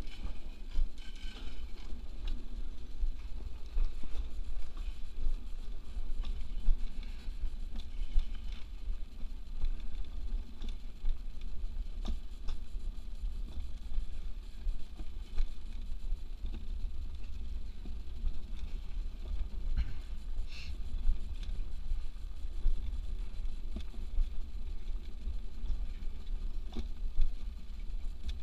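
Summer gravity toboggan rolling along its metal trough track, a steady low rumble with scattered light clicks.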